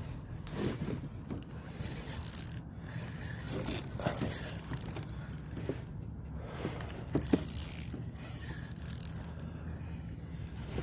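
Electric trolling motor running with a steady low hum, mixed with scattered light clicks and knocks.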